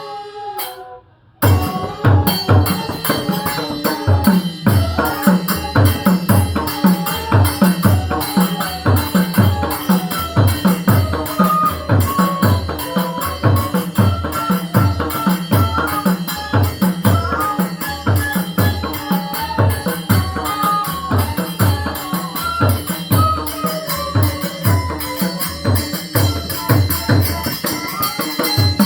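Mridanga drum playing a fast, steady rhythm of low strokes under a bansuri-style melody. The music drops out briefly about a second in, then carries on without a break.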